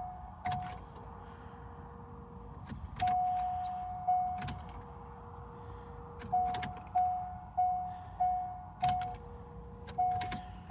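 Chevrolet C5 Corvette Z06 that won't start: its warning chimes sound over and over, mixed with a longer, lower steady tone and several sharp clicks, and the engine does not crank or run. The owner suspects a failed starter.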